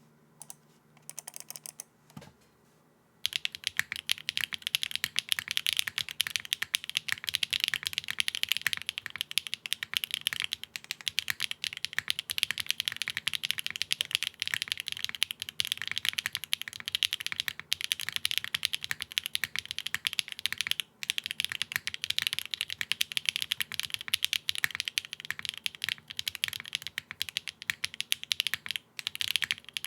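Typing on a TGR 910 ME V2 mechanical keyboard with HMX Sunset Gleam switches, a polypropylene plate, top mount and no foam. A few lighter key presses come in the first couple of seconds, then fast continuous typing from about three seconds in, with brief pauses.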